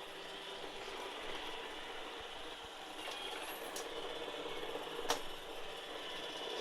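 iRobot Roomba robot vacuum running over carpet: a steady whir from its vacuum motor and brushes, with a sharp click about five seconds in.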